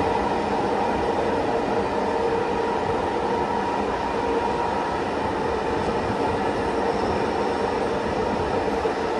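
Bombardier R143 subway car running along the track at a steady speed, heard from on board: a constant rumble of wheels and track with a steady hum from the propulsion.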